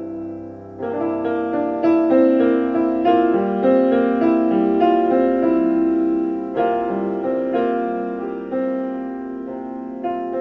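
Solo piano playing a composition in sustained notes and chords, growing fuller and louder about a second in.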